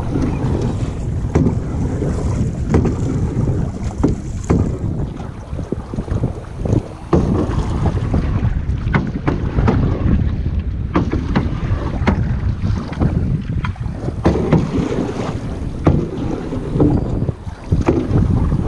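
Wind buffeting the microphone over choppy water, with irregular knocks and clunks from an oar and a paddle working an aluminium rowboat.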